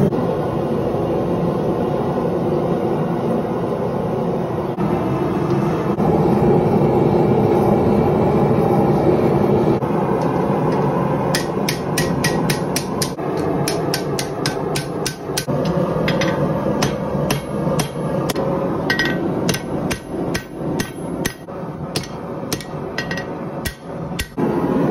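Gas forge burner running with a steady roar, then a hand hammer striking red-hot flat steel on an anvil. The blows come about two or three a second and then more spaced out, several with a short metallic ring, as the blade blank is forged.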